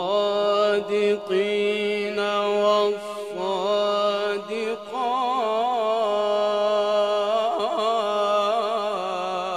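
A man reciting the Qur'an in a melodic, chanted style, holding long ornamented notes with a wavering pitch. There are short breaks about three and five seconds in, then one long held phrase.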